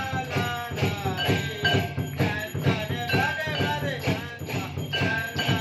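Hindu devotional aarti music: a melody over a steady rhythmic beat, with jingling bells.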